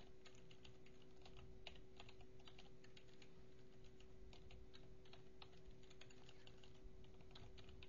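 Faint typing on a computer keyboard: quick, irregular keystrokes as code is entered, over a low steady hum.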